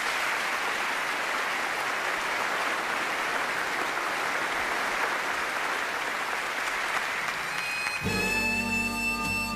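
Audience applauding steadily. About eight seconds in, music starts with sustained held notes.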